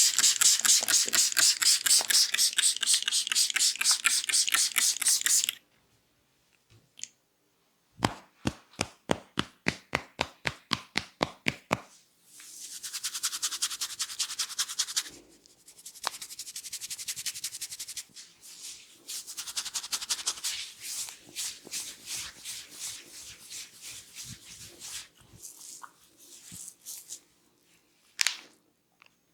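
Hands massaging a head, with fast rubbing and scratching strokes through the hair and, after a short pause, a run of sharp taps at about four a second for several seconds.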